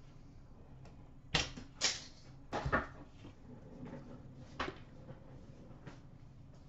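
Handling of trading cards and card-box packaging: four light knocks with some rustle, spread over a few seconds, with fainter ticks between.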